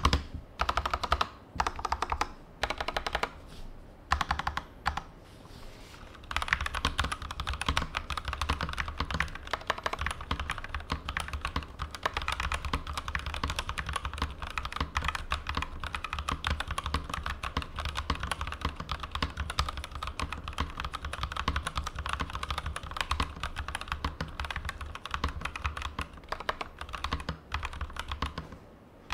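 Typing on a Durgod Cavalry 87 mechanical keyboard with Kailh Turbo switches and PBT double-shot keycaps. A few short separate runs of keystrokes come first, then from about six seconds in, fast continuous typing that stops just before the end.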